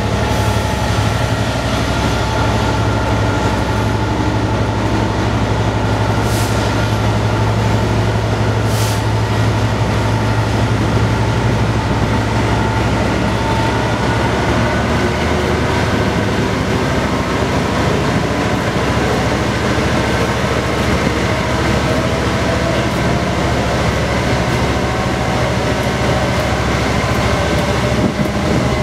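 Class 67 diesel locomotive's two-stroke V12 engine working under power as the train pulls away from a station and gathers speed, with wheel and rail noise. A deep steady drone eases after about half way, while a higher whine rises slowly as the speed builds.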